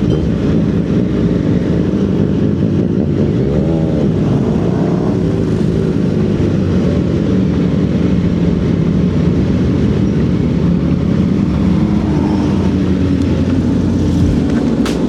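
CFMOTO 675SS inline three-cylinder engine with an aftermarket exhaust running steadily under way, with a brief rev that rises and falls about four seconds in.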